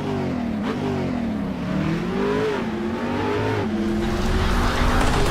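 Car engine revving, its pitch rising and falling slowly over a noisy rumble that grows louder near the end.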